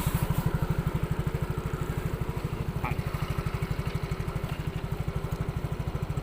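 Small motorcycle engine running steadily at low revs, with an even low pulse of about twelve beats a second.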